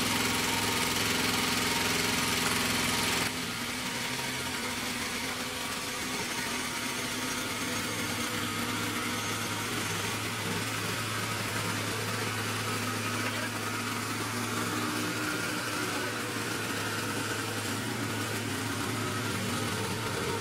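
Small gasoline engine of a rear-tine rototiller running steadily as it works dry, compacted soil. About three seconds in its sound drops suddenly, then holds steady.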